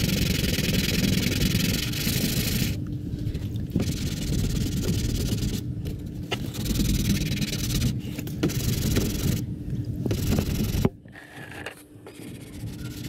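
A car's front bumper being sanded: a rough scraping hiss in stretches of a second or two with short pauses between, stopping suddenly near the end.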